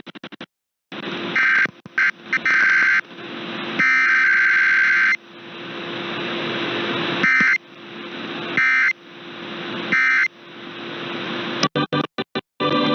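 Emergency Alert System Required Weekly Test data bursts: harsh, buzzing digital SAME header tones in the first five seconds, then three short end-of-message bursts about a second and a half apart. A rising hiss fills the gaps between bursts, and a low steady hum runs underneath.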